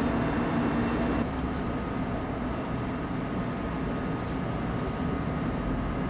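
Steady low background rumble and hiss with a faint hum, with no distinct events: ambient room tone.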